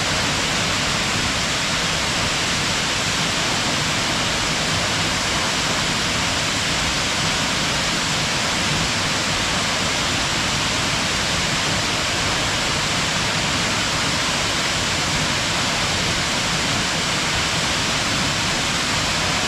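Waterfall rushing steadily: a constant, even roar of falling water with no pauses or changes.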